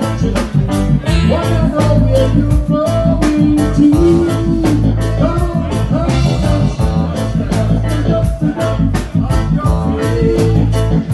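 A band playing a steady, rhythmic song with a strong bass line, guitar and a singing voice.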